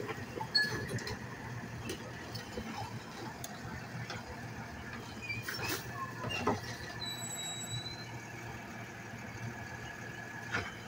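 Automated side-loader garbage truck running at the curb while its hydraulic arm dumps a cart and lowers it back down, with several sharp clunks and a high squeal in the second half.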